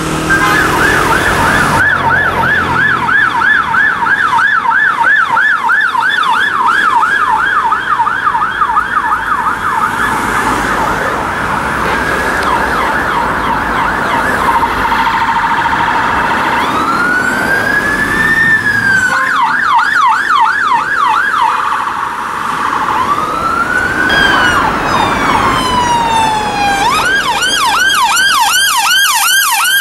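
Electronic sirens of UK emergency vehicles on a call, over traffic noise. A fast yelp runs for roughly the first half. Slow rising-and-falling wails then alternate with short bursts of yelp, and near the end an ambulance response car's siren sounds in a fast yelp.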